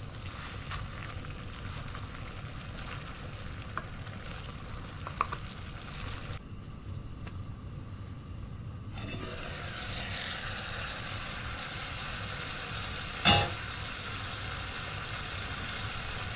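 Short ribs and cauliflower sizzling in an enamelled cast-iron braiser, the cooking liquid cooked off so the food is sautéing, with light taps of a wooden spatula. The sizzle goes muffled and quiet for a few seconds, then comes back louder, and a single loud clank sounds about thirteen seconds in.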